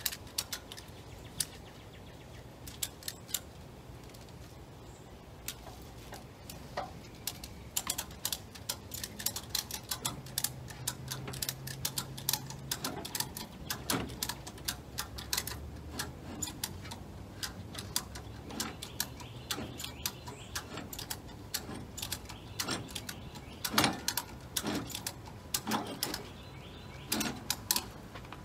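Ratchet strap being cranked: bursts of sharp ratcheting clicks with short pauses between strokes, as the tightening strap draws a car's torque tube out of its housing.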